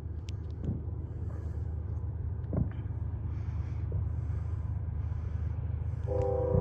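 Approaching Canadian Pacific freight train's diesel locomotives, a steady low rumble growing slightly louder. About six seconds in, the locomotive horn begins to blow a steady chord of several notes.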